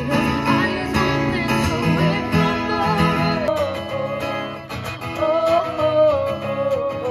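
Indie folk song with an acoustic guitar and a singing voice, the voice holding a long, wavering note in the second half.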